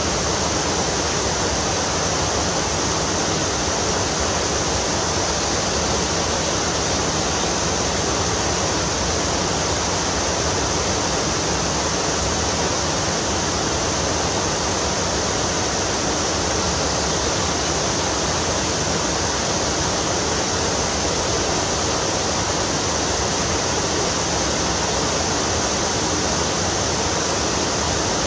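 Steady, even rush of flowing water, unbroken throughout.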